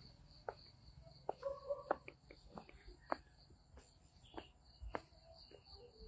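Footsteps on a dirt and stone garden path, as irregular soft knocks, with an insect chirping in a steady high pulsing tone behind them.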